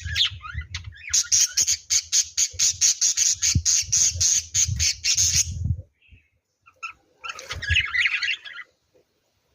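A bird giving a rapid series of harsh squawks, several a second. They stop about six seconds in, and a shorter burst of calls follows near the end.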